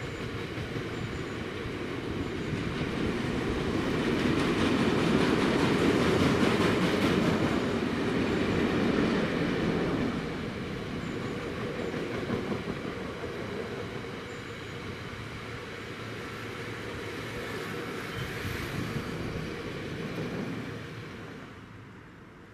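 A freight train's bogie tank wagons rolling past with a steady rumble and clatter of wheels on the rails. It is loudest about five to ten seconds in, then eases and dies away as the last wagon goes by near the end.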